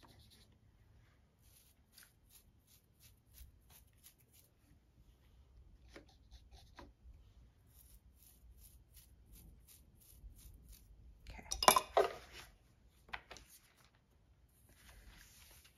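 A paintbrush tapped in two quick runs of light ticks, about four a second, spattering watercolor onto a notebook page. Then a loud clink as the brush knocks against a glass water jar, and a rustle of paper pages being turned near the end.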